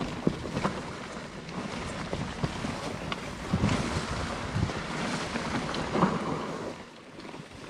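Mountain bike rolling fast down a rough trail: tyres on dirt and stones, the bike rattling with many sharp knocks over bumps, and wind rushing on the microphone. It goes quieter about seven seconds in.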